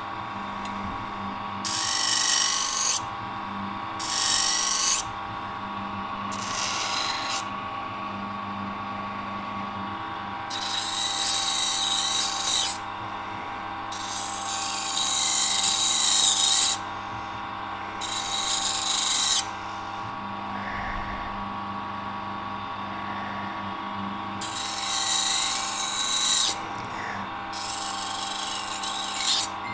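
Electric grinder running steadily as excess metal is ground off a warm knife part. The metal is pressed to it in about eight passes of one to three seconds, each a loud grinding hiss, with the motor humming alone between them.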